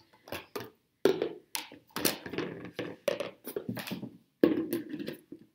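Nested plastic Tupperware Impressions bowls and their seals being lifted out of one another and set down on a table: a string of plastic knocks and clacks, the loudest about four and a half seconds in.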